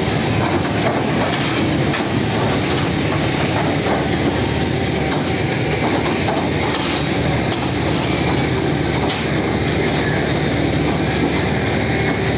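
Heavy track-laying machine at work on a railway line: a steady, dense engine-and-machinery noise with faint scattered clicks and knocks.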